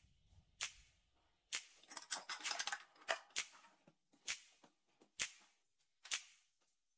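Sharp clicks repeating at a steady beat, a little under one a second, with a dense burst of crackling smaller clicks about two seconds in.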